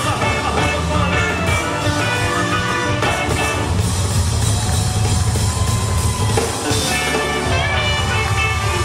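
Rock band music: electric guitars and a drum kit playing a steady beat.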